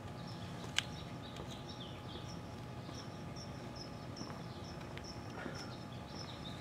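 Faint, high-pitched chirping from a small animal outdoors, short notes repeating evenly about three times a second. A single sharp click sounds about a second in.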